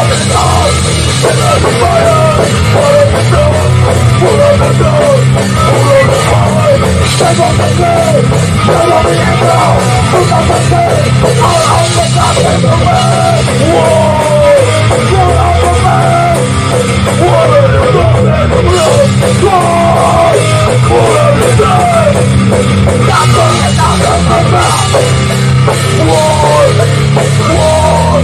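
Hardcore band playing loud in a rehearsal studio: distorted electric guitars over a pounding drum kit and bass, with the guitar line bending and sliding in pitch throughout.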